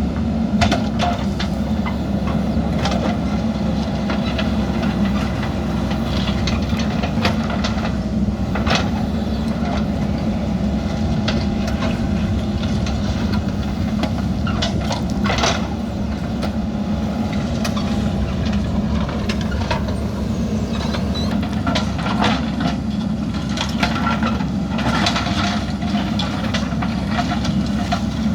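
JCB backhoe loader's diesel engine running steadily while the machine works, with scattered short knocks and scrapes over the engine drone.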